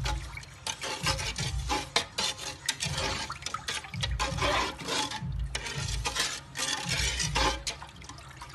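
Hand squeezing and churning a brown sauce mixture in a metal pot: the liquid sloshes and squelches with each stroke, about two strokes a second.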